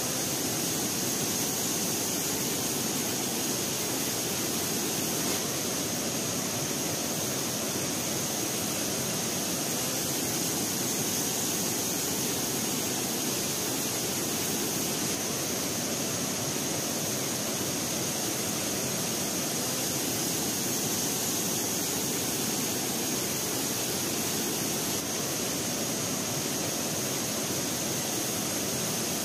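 Steady rushing of a wide, many-stepped cascading waterfall: an even, unbroken roar of falling water with a high hiss on top.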